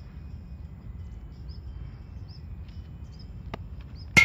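A pitched baseball smacking into a catcher's mitt once near the end, a sharp loud pop with a short ring. Small high chirps repeat faintly in the background.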